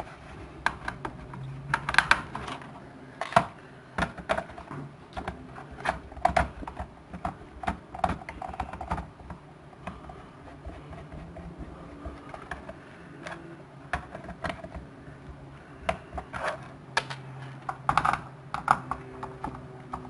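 Small crosshead screwdriver undoing the screws of a laptop's plastic RAM door: irregular light clicks and taps of the tip against the screw heads and the casing. The clicks come thick for the first several seconds, thin out in the middle and pick up again near the end.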